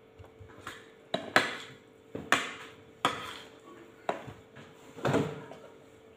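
Metal spoons and forks clinking and scraping against ceramic plates and bowls during a meal, a separate knock about once a second.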